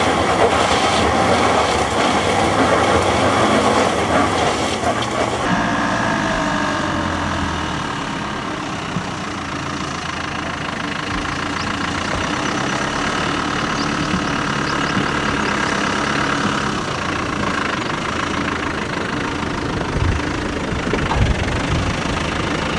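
Off-road 4x4 engines running at low speed. First a Range Rover crawls up a rocky slope; then, after a cut about five seconds in, a Land Rover Defender 90 moves slowly across a dirt slope, its engine droning steadily.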